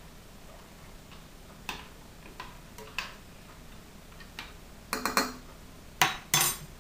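A few short, sharp clicks and knocks over a quiet background, with a cluster about five seconds in and two louder ones near the end.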